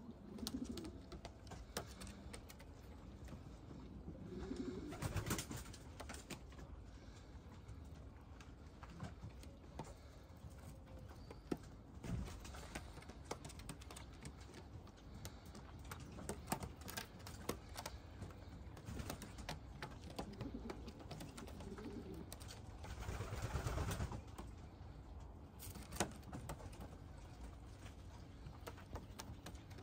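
American Show Racer pigeon cooing now and then: a few low coos near the start, about five seconds in and again about twenty seconds in. Scattered sharp clicks and two short rushes of noise come between them.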